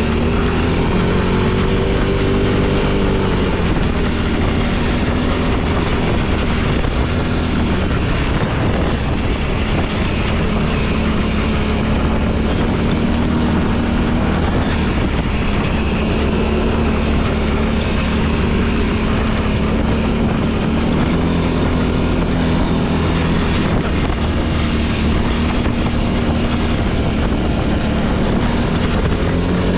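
Engine of a gas-powered off-road machine running steadily under way on a trail, its pitch shifting a little with the throttle, with wind rushing over the microphone.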